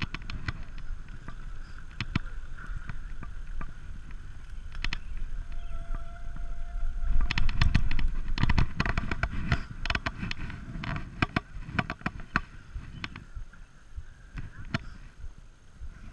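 Wind noise on an action camera's microphone while riding a road bike, with tyre noise and frequent clicks and knocks from the bike, loudest about seven to ten seconds in.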